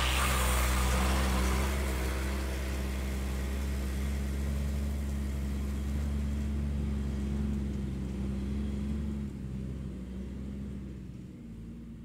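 Fire engine running as it drives off along a dirt forest track, a steady low engine note that fades away in the last few seconds.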